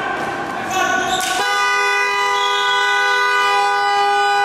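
Gym game horn: after about a second and a half of court noise, a loud, steady, buzzing blast starts suddenly and holds without a break, signalling a stop in play.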